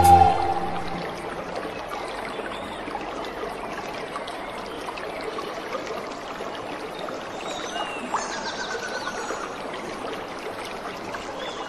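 Background music cuts out at the very start, leaving a steady outdoor crowd hubbub: an even, hissy wash of many people, with a few faint distant voices or whistles about eight seconds in.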